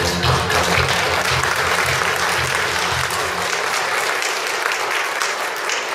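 Audience applauding, with the backing music still playing under the clapping until it fades out about three and a half seconds in.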